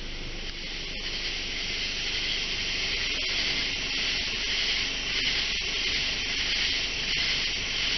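Dense chorus of night insects, a steady high hiss, over the faint low hum of a car engine idling.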